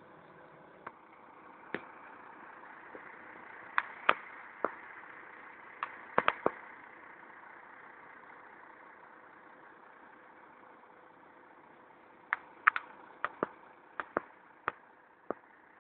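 Volvo FH 480 truck's straight-six diesel engine running steadily while its hydraulics work the truck-mounted Terex knuckle-boom crane; the hum swells a little a couple of seconds in and then eases. Sharp clicks and clanks are scattered over it, in clusters a few seconds in and many near the end.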